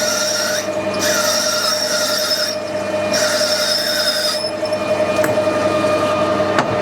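Tapping drill squealing as it cuts dry into a brass bar on a metal lathe, in three stretches over the lathe's steady hum, the squeal stopping about four and a half seconds in.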